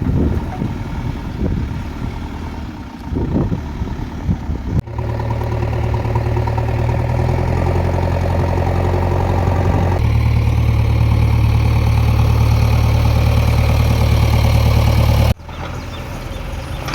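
Heavy diesel engine running steadily, its even low note shifting slightly about two-thirds of the way through, after a few seconds of mixed machinery noise; it stops abruptly near the end.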